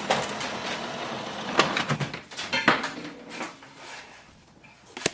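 Epson WorkForce WF-7310 inkjet printer's mechanism running with a whirring rattle for about a second and a half as the printhead carriage starts to move, then stopping, followed by a few sharp plastic clicks.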